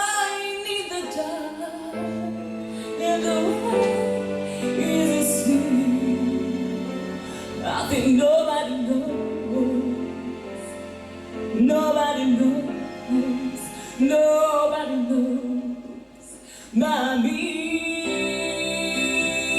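A girl singing a song over instrumental accompaniment, holding long notes. The music drops away briefly about sixteen seconds in, then comes back.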